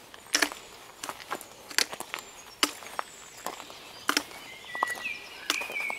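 Footsteps of a walker on a path, crisp steps at a little more than one a second. A thin high call, likely a bird, comes in near the end.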